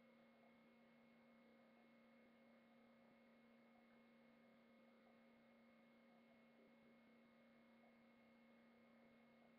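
Near silence: only a faint, steady electrical hum and hiss.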